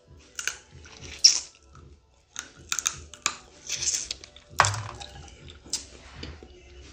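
Cooked blue crab legs being bitten and picked apart by hand and chewed: irregular crackles and clicks of shell, with a louder crack about four and a half seconds in.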